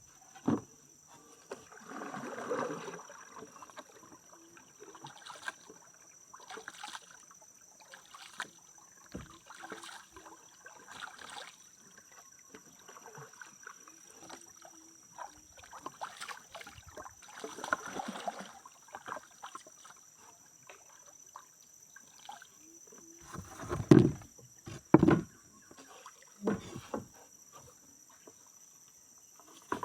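Small boat being paddled on a river: intermittent paddle swishes in the water, with a few loud knocks near the end. A steady high-pitched insect drone runs underneath.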